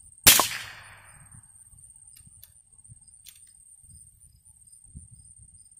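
A single shot from a Marlin .22 LR rifle firing 40-grain rounds, a sharp crack about a third of a second in that dies away over about a second, as the bullet punches through a stack of tuna cans.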